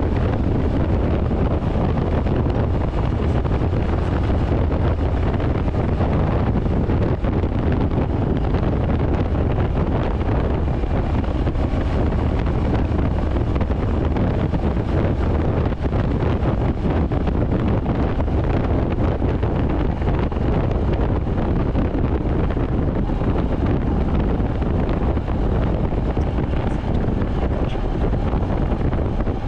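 Royal Enfield Hunter 350's single-cylinder engine and exhaust running steadily at highway cruising speed, with wind rushing over the microphone.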